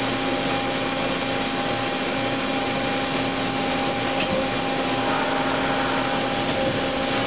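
Mazak H400 N horizontal machining center running, a steady mechanical hum with several constant whining tones, while its pallet table turns the tombstone fixture.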